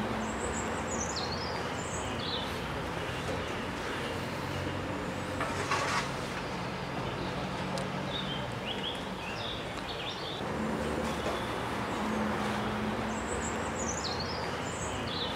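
Steam locomotive LMS Jubilee No. 45596 'Bahamas' standing simmering, with a steady low hum and background noise. Over it a songbird sings a short falling phrase three times, and there is a single knock about six seconds in.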